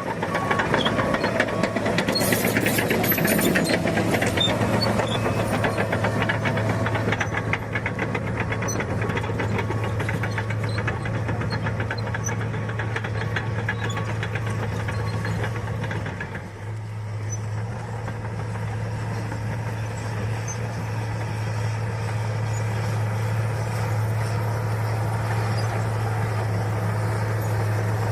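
Diesel engine of a heavy earthmoving machine (excavator or crawler dozer) running steadily under work, with a dense metallic clatter for the first several seconds that then eases off.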